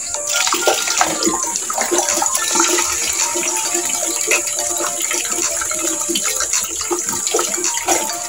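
Water running steadily from an outdoor tap into a plastic bucket, with short scrapes and knocks from mixing sand and cement by hand.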